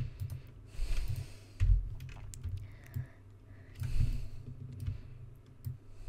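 Computer keyboard keys and a mouse clicking, a scattering of separate clicks and taps while working at the computer.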